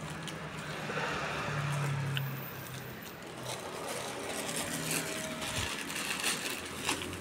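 A clear plastic bag crinkling and rustling as it is opened and the puffed crackers inside are handled, with many small sharp crackles. A low steady hum runs underneath.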